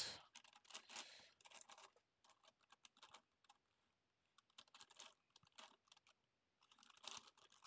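Faint, rapid plastic clicking of a Gigaminx, a five-layer dodecahedral twisty puzzle, as its layers are turned by hand. The clicks come in quick bursts with short pauses, the longest about a second, near the middle.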